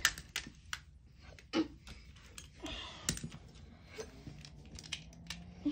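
Scattered light clicks and taps of plastic Beyblade tops and parts being handled, about a dozen irregular ticks spaced unevenly.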